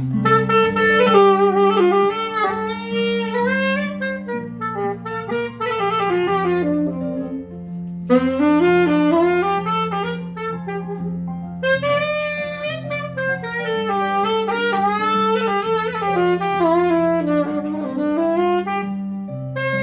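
Tenor saxophone playing an instrumental solo of quick runs that climb and fall, in two long phrases with a short break about seven and a half seconds in, over a steady low bass accompaniment.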